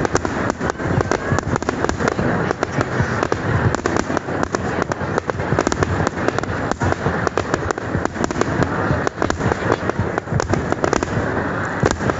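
Dense, continuous fireworks display: many bangs and crackles overlapping without a pause, heard from the ground.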